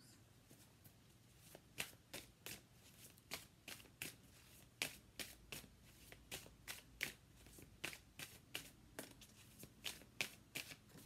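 A tarot deck being shuffled by hand, giving a faint run of soft card slaps and flicks at an uneven pace, about three a second.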